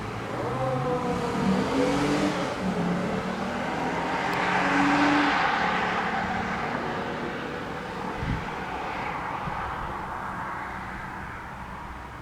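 A car engine accelerating hard through the gears, its pitch climbing, dropping at a shift and climbing again, as the car passes and then fades into the distance. There is a brief thump near the end.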